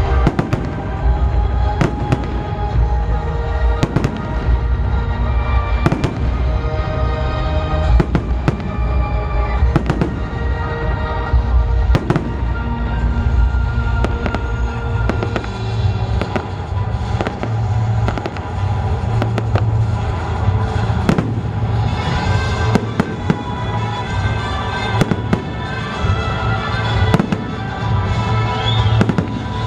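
Fireworks display: a continuous run of shell bursts, bangs and crackles, over music with sustained notes and heavy bass.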